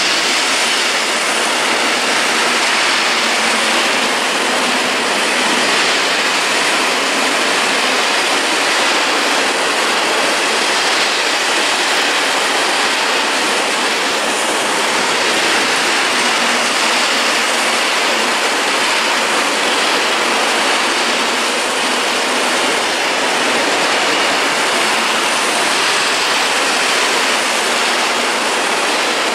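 A long freight train of open coal wagons rolling past at speed. The wheels on the rails make a steady, loud rushing noise.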